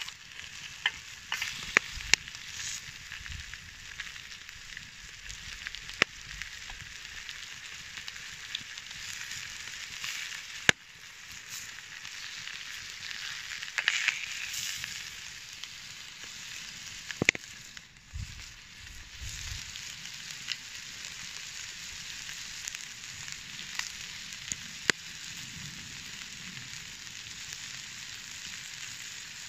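Chicken pieces and diced onion sizzling in oil in a steel pan over a wood fire, a steady frying hiss. Sharp metallic clicks now and then come from tongs striking the pan as the pieces are turned.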